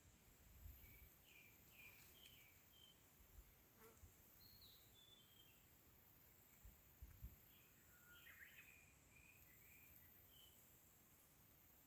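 Near silence outdoors: faint bird calls in short groups of high chirping notes, over a steady faint high hiss of insects.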